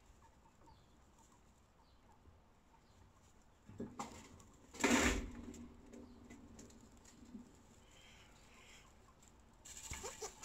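Newborn chinchilla kits squeaking and fussing as they squabble over their mother's milk while nursing. It is mostly quiet, with one louder call about halfway through and a flurry of short calls near the end.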